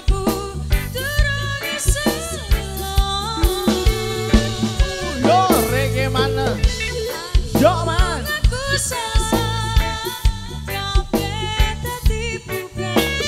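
Live dangdut band playing a song: a woman's singing voice over a steady drum beat and heavy bass.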